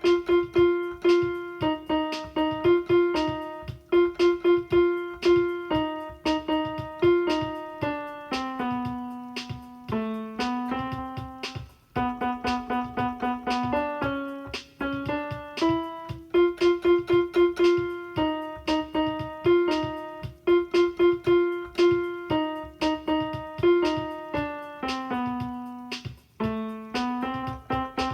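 Piano playing a lively melody of short separate notes, with quick runs of repeated notes and a line that steps up and down in pitch.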